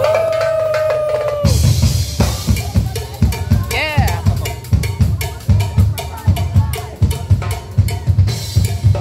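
Live percussion band on a boat playing a steady beat on drum kits, with bass drum, snare and cymbals. The drumming starts about a second and a half in, after a long held note.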